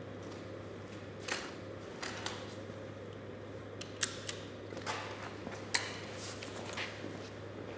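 Quiet room tone with a steady low hum, broken by scattered light clicks and knocks from a camera being handled on its tripod and from people moving about on a concrete floor; the sharpest clicks come about four and six seconds in.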